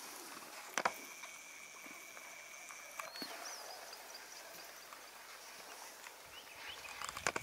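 Quiet bush ambience: faint wavering bird-like whistles and a steady high-pitched tone, with a sharp click about a second in, another at three seconds and a pair near the end.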